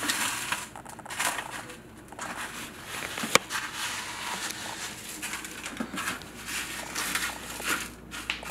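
Hands pressing a battered snapper fillet into dry panko breadcrumbs in a plastic tub: the crumbs rustle and crunch in short scratchy strokes, with one sharp click about three seconds in.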